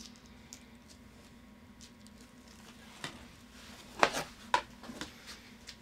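Quiet room with a steady low hum, and a few soft clicks and rustles of craft materials being handled about three to five seconds in.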